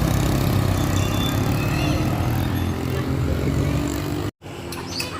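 Heavy diesel engine of a large bus running close by, a loud low rumble. It cuts off suddenly about four seconds in, leaving quieter road noise.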